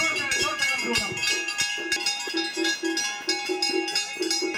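Temple bells ringing rapidly and steadily, several strikes a second, with the ring held between strokes, over a crowd talking.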